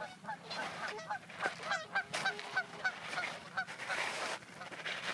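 Geese honking in a rapid series of short calls, about three a second, as they chase an intruding goose off their territory. The calls stop about four seconds in.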